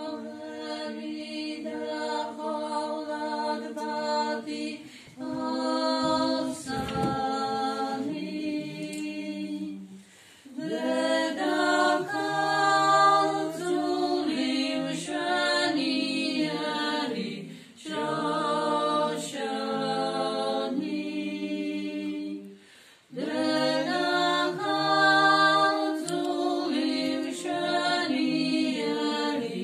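A small group of women singing a hymn without accompaniment, in sustained phrases of about five seconds, with short pauses for breath between them.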